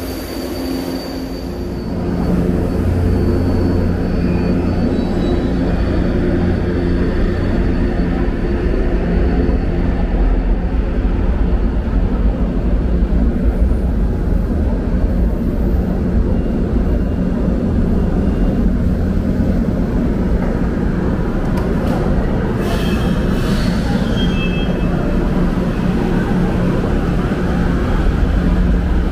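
São Paulo Metrô Line 3 train at the platform, then pulling out: a steady low rumble of the train, with a few brief high tones about three-quarters of the way through.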